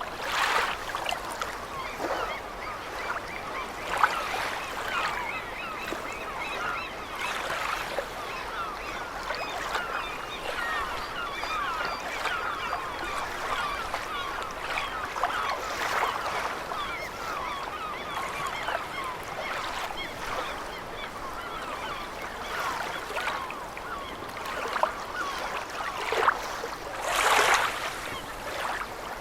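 A flock of gulls calling without pause, a dense overlapping chatter of short cries, over the steady wash of the sea. Louder surges of water come a few times, the biggest near the end.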